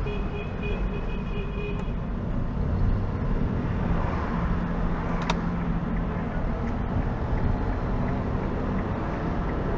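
Steady engine and road rumble inside the cabin of a Hyundai car being driven in stop-and-go city traffic, with a single sharp click about halfway through.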